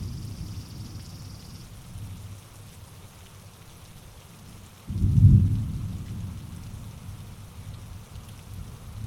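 Steady rain falling, with a low rumble of thunder fading away at the start and a sudden peal of thunder about five seconds in that rolls off over the next couple of seconds.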